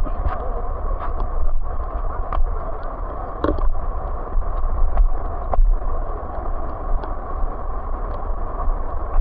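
Steady rushing noise with wind buffeting the microphone in gusts, and scattered short clicks and knocks.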